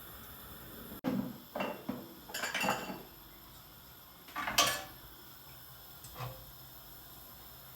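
Kitchen utensils and dishes clattering: a run of knocks and clinks from about one to three seconds in, a louder clatter past the middle, and a light knock near the end.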